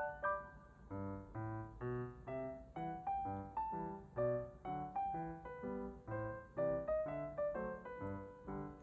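Background piano music: light chords struck in a steady rhythm, about two or three a second.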